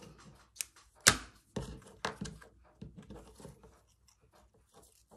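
Scissors snipping ribbon: a few sharp clicks in the first two seconds, the loudest about a second in, then soft rustling as the ribbon is handled and tied.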